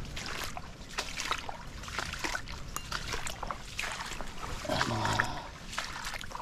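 Footsteps and rustling of brush as a person walks, with irregular crackles and snaps.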